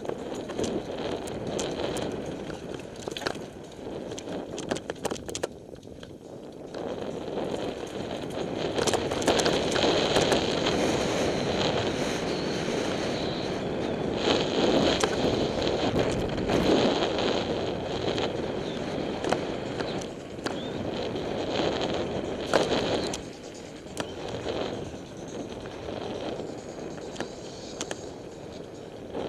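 Mountain bike rolling fast downhill over a dirt and gravel forest trail: steady tyre noise on the loose surface, with the bike clattering and rattling over bumps. It is loudest through the middle and eases near the end.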